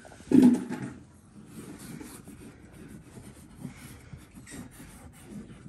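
Fingertip rubbing and scraping through frost on a car windscreen in a run of short strokes, loudest about half a second in.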